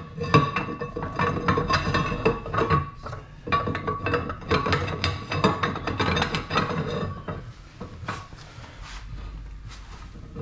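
Background music with short, sharp hits; it thins out and drops in level about seven seconds in.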